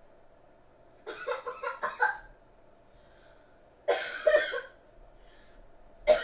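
A child coughing in fits: a run of rapid coughs about a second in, another burst of coughs near four seconds, and one sharp cough at the very end. The coughing is staged as a fake allergic reaction to eating Play-Doh.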